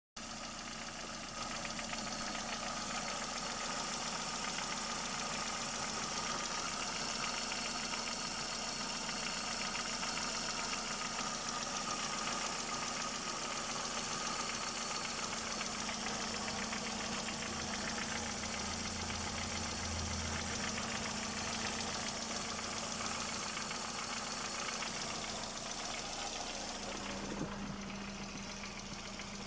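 Car engine running with a knock. The piston rings and connecting-rod bearings are new and the cylinder head has been overhauled, and the owner does not know what is knocking.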